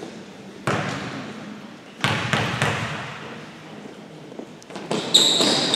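Sounds of a basketball game in an echoing gym during a free throw: a basketball bouncing on the hardwood and sudden bursts of noise that die away in the hall. A steady high tone comes in near the end as the sound grows louder.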